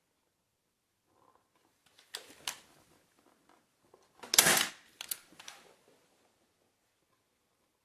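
Staple gun firing a staple into the wood of a cushion rail: one loud sharp snap about halfway through, with several lighter clicks and cloth handling around it.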